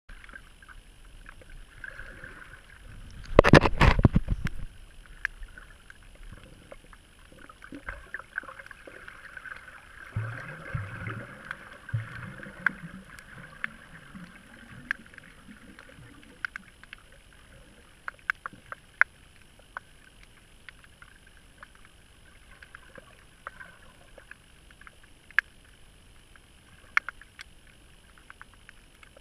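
Underwater reef ambience: a steady hiss with scattered sharp clicks and crackles. A loud rough burst of noise comes about three to four seconds in, and low wavering sounds come and go between about ten and sixteen seconds.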